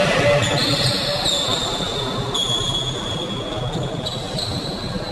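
Sports-hall background noise during a volleyball match: a steady noisy hum with faint high tones and no clear ball strikes.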